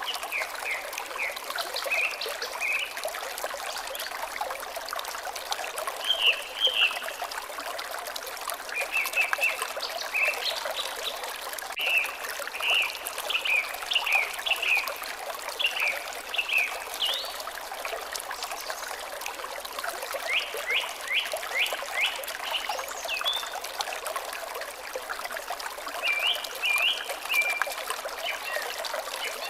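Water trickling steadily, with a small songbird singing short runs of high chirping notes every few seconds.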